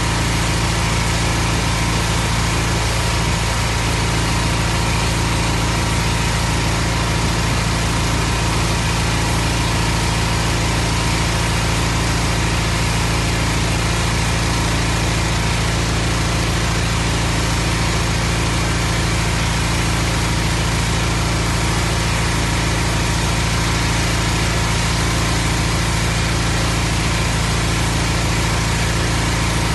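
Engine running steadily at a constant speed, with the hiss of a high-pressure water jet blasting roof tiles.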